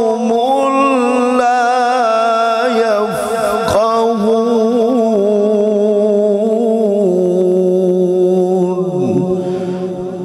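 A male qari reciting the Quran in melodic tajweed style, drawing out a long, ornamented note that wavers up and down in pitch. Near the end it dies away with an echo.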